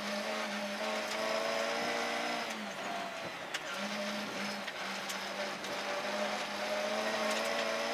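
Rally car engine heard from inside the cabin, pulling hard on a gravel forest stage with tyre and gravel noise beneath it; the engine note climbs, drops away about two and a half seconds in as the driver lifts or changes gear, then picks up again a second later. A few sharp knocks sound around the dip.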